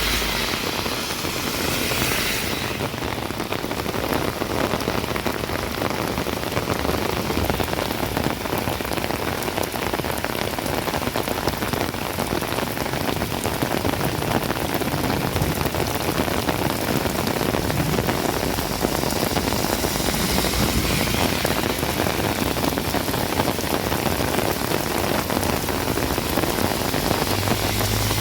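Rain falling steadily on hard surfaces, a dense, even hiss of patter.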